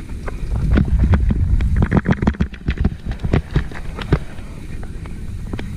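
Downhill mountain bike clattering over rough, rocky ground: a quick run of knocks and rattles over a low rumble, with wind buffeting the microphone.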